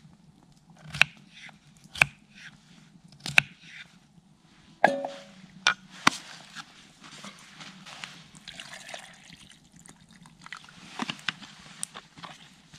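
Camp cooking preparation: a few sharp knocks about a second apart, a ringing metallic clink of cookware near five seconds in, then lighter clicks and handling noises.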